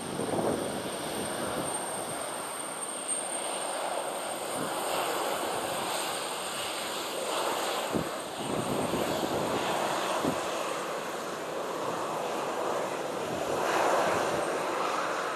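Airliner's jet engines running, a steady broad rush of engine noise that swells about a second before the end, with a faint high whine early on.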